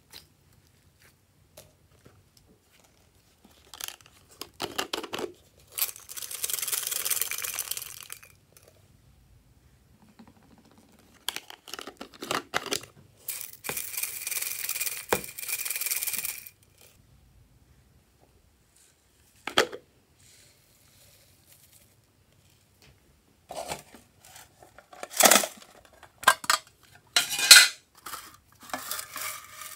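Sequins and other slime add-ins shaken out of plastic containers into a plastic bowl of slime, making two stretches of fine pattering rattle. Near the end come sharp clicks and rattles as another plastic container is opened and tipped.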